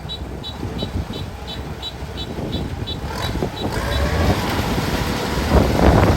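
Kubota DC-105X combine harvester's diesel engine running, growing louder about three to four seconds in. A faint high beep repeats about three times a second and stops about four seconds in.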